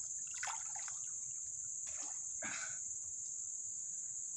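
Steady high-pitched drone of insects, with a few small splashes and trickling water as a fishing net's line is pulled by hand through the water.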